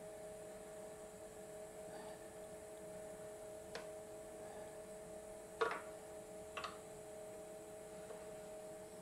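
A steady hum with three short clicks, about four, five and a half and six and a half seconds in, the middle one loudest. The clicks come from a wrench turning the eccentric (offset) bushing on the CNC router's carriage to take the twist out of the router's tram.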